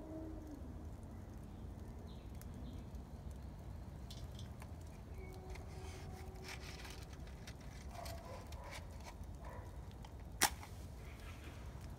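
Small fire of twigs and paper crackling in a metal fire bowl: scattered light clicks, with one sharp crack about ten seconds in, over a low steady background rumble.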